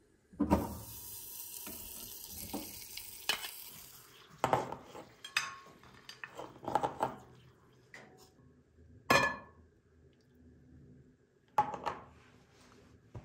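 Butter dropped from a metal plate into a small metal pot over a gas flame, sizzling for a few seconds as it melts, then fading. After that come several separate clinks and knocks of metal kitchenware.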